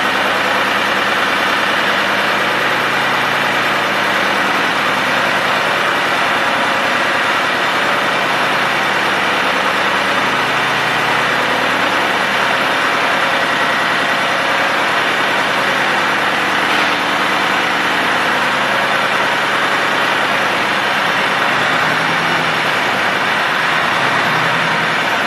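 Goldoni 240 Universal tractor's Lombardini 11LD626-3 three-cylinder air-cooled diesel engine running steadily while stationary.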